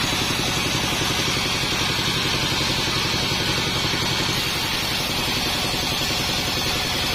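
Modified 48-inch band sawmill running steadily, a low machine hum with a hiss above it. There is no clear change in speed or load.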